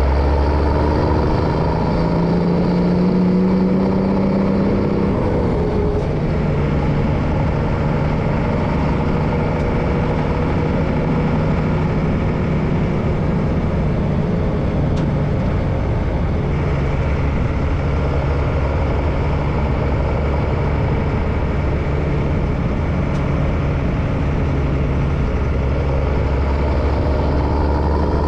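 MAN LE 280B 4x4 truck's diesel engine running steadily on the road. Its revs climb over a few seconds, then drop about five seconds in.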